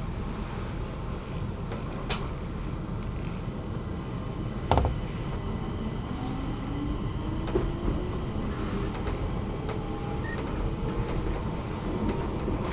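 Stockholm metro train running, heard from inside the carriage: a steady low rumble with a sharp clack about five seconds in. After that a faint motor whine rises in pitch as the train picks up speed.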